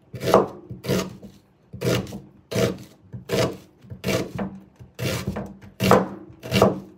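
Kitchen knife slicing through an onion and tapping the cutting board beneath it, a steady series of about ten cuts roughly every 0.7 seconds.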